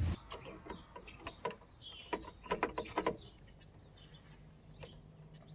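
A cluster of clicks and knocks over the first three seconds as a 40 amp circuit breaker is pushed and snapped into the breaker panel, with a few bird chirps in the background.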